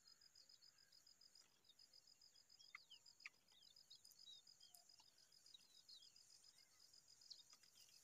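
Faint, steady high insect trill, evenly and rapidly pulsed over a thin high hiss, with scattered short high bird chirps and whistles from about three seconds in.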